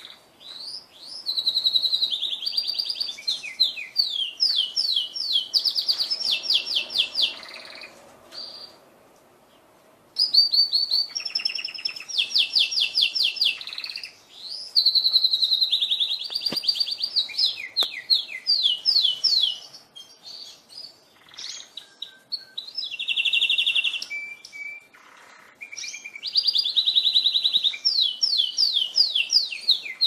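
Canary singing: long runs of fast, evenly repeated trilling notes, broken by short pauses, with a quiet lull about eight seconds in.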